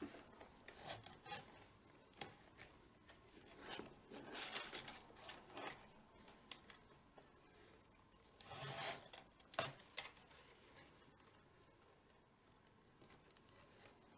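Faint rubbing and scraping of a tabla's leather strap (badhi) being pulled through the lacing holes around the drum head. It comes in irregular bursts, with a sharp click about ten seconds in, then goes quieter.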